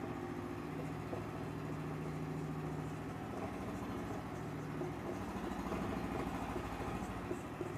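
A steady mechanical hum from a running machine, with a fast low pulsing like an idling engine, under faint marker strokes on a whiteboard.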